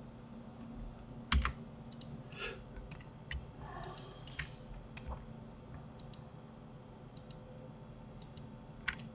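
Computer keyboard keys and mouse buttons being clicked: about a dozen faint, short clicks at irregular intervals, over a faint steady hum.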